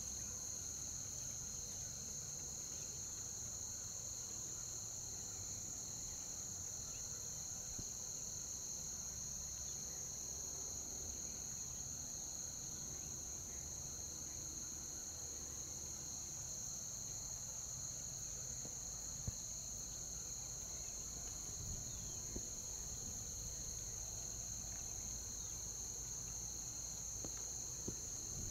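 Steady chorus of insects, cricket-like, trilling in an unbroken high band, with a few faint ticks in the second half.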